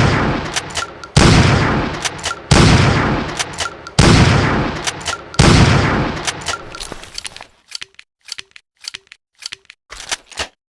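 Winchester Model 1897 pump-action shotgun firing four shots about a second and a half apart, each with a long echoing tail and quick clicks of the pump action after it. Near the end comes a run of light mechanical clicks from the gun.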